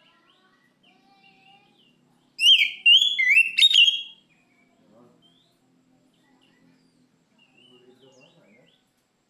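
Oriental magpie-robin singing a loud burst of sliding whistled phrases about two and a half seconds in, lasting under two seconds, with faint, softer calls around it.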